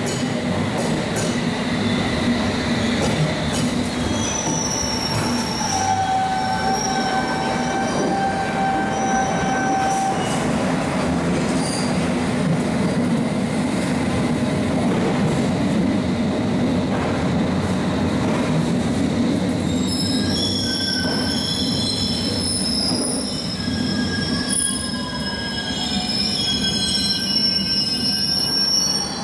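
London Underground S stock trains running through the station with a steady low noise and wheel squeal on the curved track. A held squeal comes about six seconds in, and several high overlapping squeals come from about twenty seconds in as a train comes to a stand at the platform.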